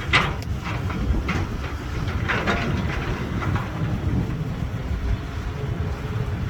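Caterpillar 320BL excavator's diesel engine running with a steady low rumble, with a few short clanks and scrapes, the strongest just after the start and about two and a half seconds in.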